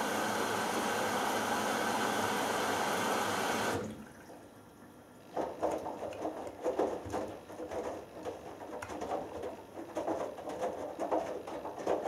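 Hoover Dynamic Next washing machine filling: a steady rush of water into the drum cuts off suddenly about four seconds in. After a short pause the drum starts turning and the wet laundry sloshes and swishes irregularly.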